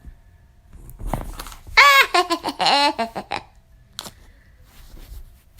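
A high-pitched, wavering vocal sound lasting about a second and a half near the middle, its pitch bending up and down, with a few faint clicks around it.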